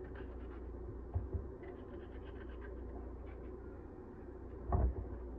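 Serrated kitchen knife sawing through a peeled beet held in the hand, a faint scratchy cutting sound, with a brief louder knock near the end.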